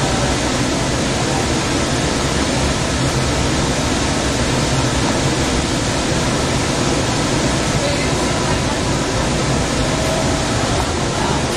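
Steady running noise of a Sound Transit Central Link light rail train moving along elevated track, heard from inside the car: an even rumble and rush of wheels, motors and air.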